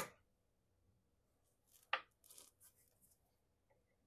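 Powder thrower's drum handle being worked to drop a charge of Titegroup powder into a primed .45 Colt case: one short sharp scrape about two seconds in, then a faint brief rustle, otherwise near silence.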